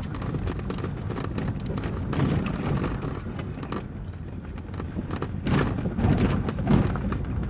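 Inside the cabin of a Fiat Tempra station wagon driving over a potholed road: steady road and engine noise with repeated knocks and rattles from the suspension and body as the car jolts through holes. The jolts are heaviest about five to seven seconds in.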